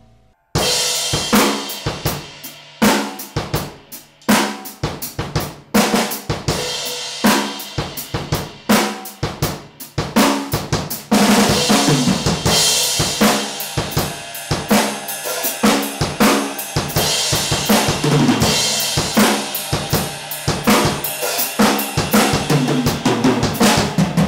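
Pearl acoustic drum kit played in a steady groove: bass drum, snare and hi-hat strokes, with cymbals washing more continuously from about halfway through and ringing out at the end. Picked up by close drum microphones (a Sabian Sound Kit mic set) through a mixer.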